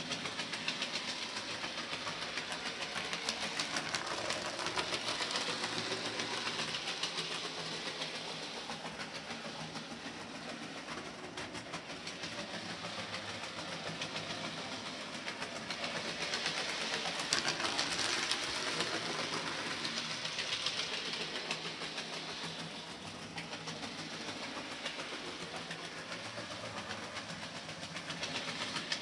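00 gauge model locomotive and two coaches running on the layout's track: a steady rattling hum of motor and wheels over the rails, growing louder twice as the train passes.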